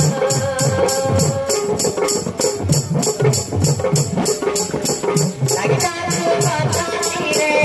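Desia folk dance music: jingling percussion keeps a steady beat of about three to four strokes a second over low drum hits and a held keyboard melody line.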